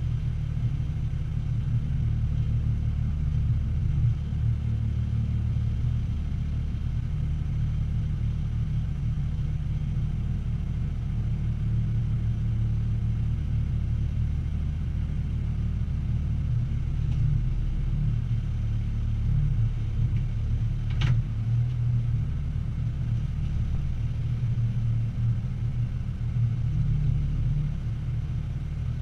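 Military truck engine running steadily at low revs while the truck creeps along slowly, heard from inside the cab as a low rumble. A single brief click comes about three-quarters of the way through.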